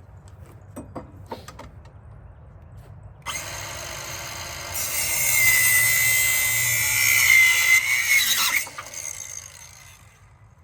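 Ryobi 18V ONE+ 4-1/2-inch cordless circular saw cutting a 2x4. A few knocks come first. The motor spins up a few seconds in, then the blade runs through the wood with a loud, steady high whine for about four seconds before the motor winds down.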